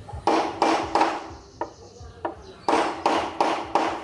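A hammer striking the end of a screwdriver used as a punch against a motorbike part: three quick metal-on-metal strikes, two light taps, then four more strikes, each ringing briefly.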